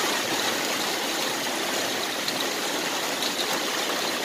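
Heavy rain pouring down onto pavement, a steady even hiss.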